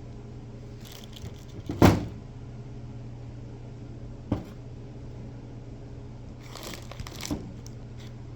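Brake pads and their packaging being handled: rustling, a sharp knock about two seconds in and a lighter one about four seconds in, over a steady low hum.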